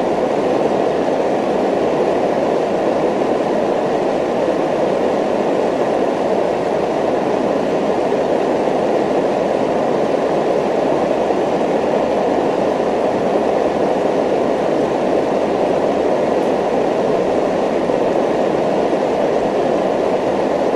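Steady, even rumbling noise with a faint flutter in the low end, unchanging throughout.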